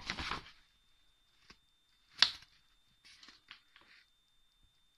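A paper delivery slip being handled against a cardboard box: a rustle at the start, one sharp paper snap about two seconds in, then a few light rustles and ticks.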